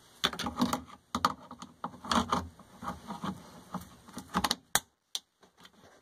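Irregular clicks, taps and scraping as channel-lock pliers work a wire spring clamp and rubber drain hose on a washing machine's plastic drain pump, going quiet near the end.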